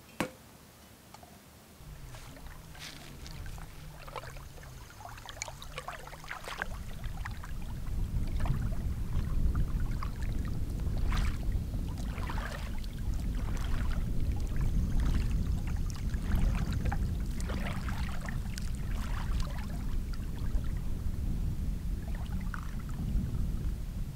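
Shallow lake water splashing and sloshing as a person wades and dips their hands in it, over a steady low wind rumble on the microphone that grows louder after the first few seconds.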